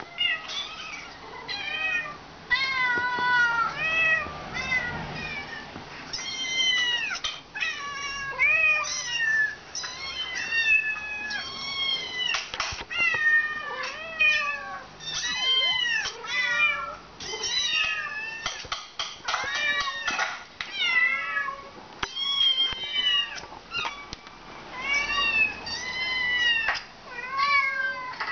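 High-pitched kitten meows, many in quick succession and some overlapping, played from a video through a laptop's speakers, with an adult cat meowing back at them. A few sharp clicks fall among the calls.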